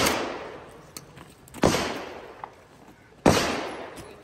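Pump-action Mossberg 500 shotgun fired three times, about a second and a half apart. Each shot echoes and fades over about a second.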